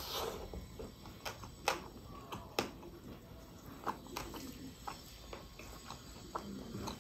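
Close-miked eating: a bite into a roast chicken leg at the start, then chewing with a string of sharp, irregular wet mouth clicks and smacks.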